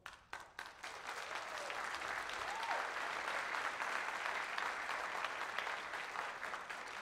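Large seated audience applauding: a few scattered claps build within about a second into steady full applause, which starts to die down near the end.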